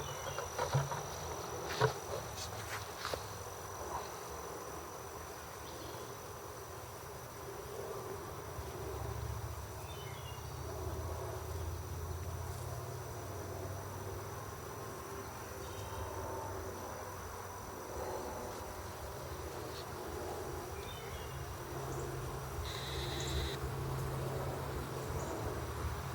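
Honey bees buzzing in flight around a busy hive entrance, a steady hum of many bees. A few soft clicks in the first seconds and a brief hiss about 23 seconds in.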